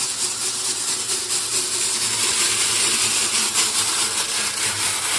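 Drill spinning a dryer-vent cleaning brush on extension rods inside a corrugated foil dryer hose: a steady, loud scrubbing hiss from the bristles on the foil, with the drill motor's hum under it.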